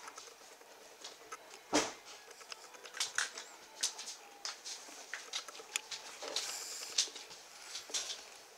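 Saint Bernard puppies scrabbling and shuffling on a blanket in a wire pen: irregular scratching, rustling and small clicks, with one sharper knock about two seconds in.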